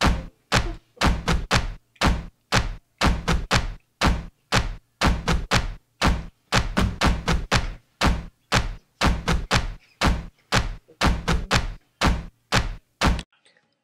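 Rhythmic percussion: a long run of sharp, thumping strikes, two to three a second in an uneven pattern, starting out of silence and cutting off abruptly near the end.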